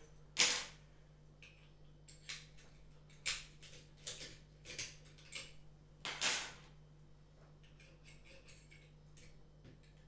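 Lock pick and lever tension tool working inside a 7-lever safe lock: a series of short, irregular metallic clicks and scrapes, the loudest about half a second in and again about six seconds in.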